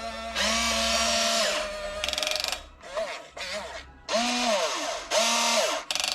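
Electric gear motors of a Huina 1592 RC excavator whining in about six short bursts, each rising in pitch as it starts and falling as it stops, with a gritty gear whir over the whine, as the model's functions are worked one after another by proportional remote control.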